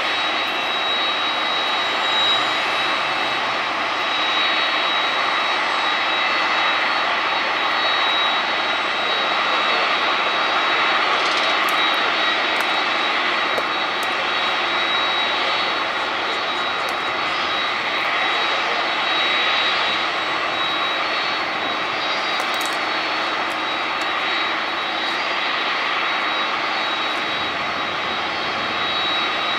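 Jet airliner engines running steadily: a constant rush with a thin, unchanging high whine over it.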